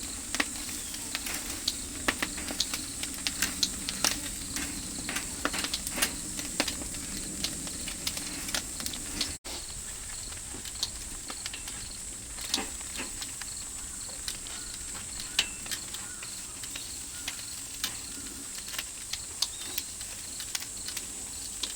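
Pork grilling over an oak-firewood barbecue: fat sizzling under a steady high hiss, with frequent sharp irregular crackles and pops. The sound drops out for an instant about nine seconds in.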